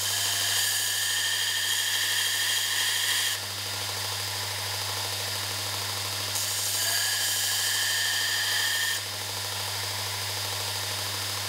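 Belt sander running with a steel chisel pressed against the belt, grinding a new cutting edge: a steady motor hum under a harsh, hissing grind. The grinding gets louder and brighter twice, up to about three seconds in and again from about six to nine seconds, and eases back in between.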